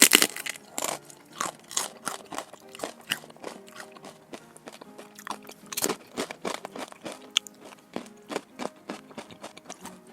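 Close-up crunching of crisp food being bitten and chewed: a rapid, irregular run of sharp cracks, loudest at the start and again about six seconds in, over soft background music.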